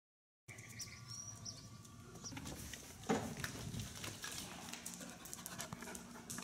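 A dog's short vocal sounds, the loudest a sharp call about three seconds in, with light clicks over faint room noise.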